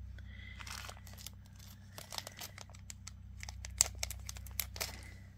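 Small clear plastic zip-top bags crinkling and rustling in the hands, with scattered light clicks and crackles; the sharpest click comes about two-thirds of the way through.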